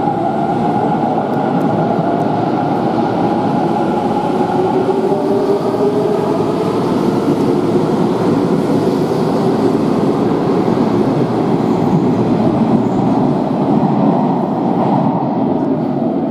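Hanshin electric commuter train pulling out and accelerating along the platform. Its motors whine in a tone that climbs steadily in pitch over the rumble of the wheels on the rails.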